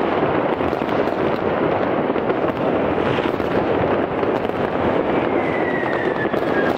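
New Year's Eve fireworks and firecrackers going off all around: a dense, continuous crackling barrage of many bangs run together. About five seconds in, a whistling firework sounds, its whistle falling in pitch.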